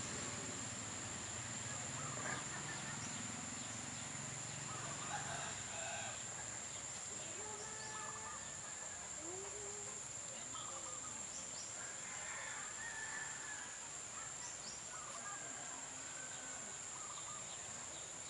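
Outdoor animal ambience: scattered short bird or fowl calls over a steady high-pitched insect drone.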